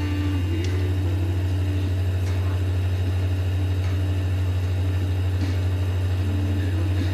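Lathe motor running with a steady low hum.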